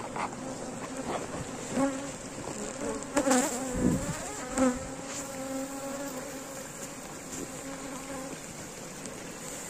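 Honeybees from a disturbed swarm flying close around the microphone, a thick buzz of many bees with single bees rising and falling in pitch as they pass. A few knocks sound about two, three and a half and four and a half seconds in.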